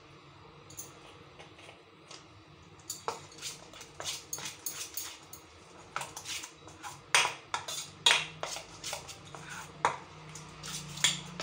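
Steel spoon stirring thick moong dal batter in a stainless steel bowl: irregular clinks and scrapes of metal on metal, starting about three seconds in.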